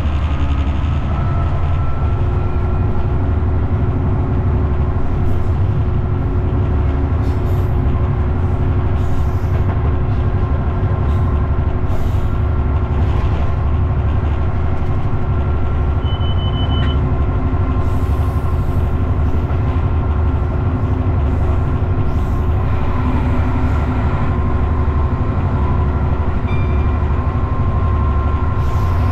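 Class 59 locomotive's EMD two-stroke V16 diesel running steadily under load, hauling a heavy aggregates train uphill, heard from the cab over the running of the train on the track. A short high beep sounds about halfway through.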